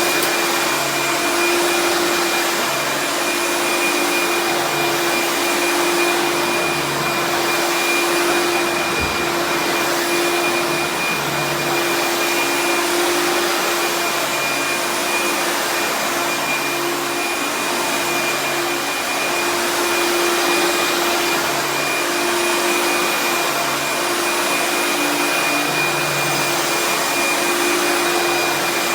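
Vintage vacuum cleaner running on low-pile carpet, a steady motor-and-fan whine with a slow rise and fall about every two seconds.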